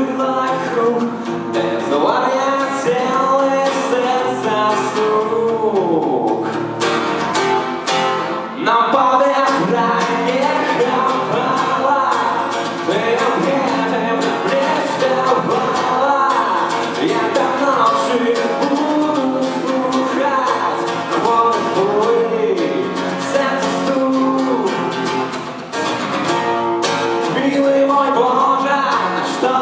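A man singing a song in Belarusian to guitar accompaniment.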